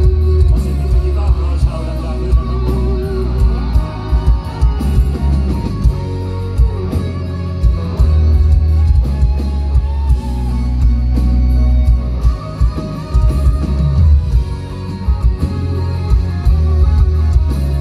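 Live rock band playing: a man singing over electric guitar, bass and drums, loud with heavy booming bass and steady drum hits.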